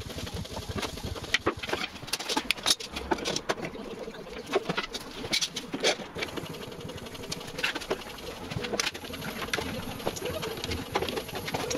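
Steel bar clamps being handled and tightened on a veneer glue-up: irregular metallic clicks and knocks as the sliding jaws are set and the screw handles turned.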